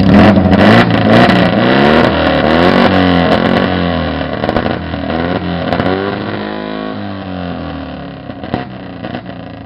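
Motorcycle with a straight-through exhaust being revved hard again and again, its pitch swinging up and down. It is loudest in the first few seconds and dies down toward the end.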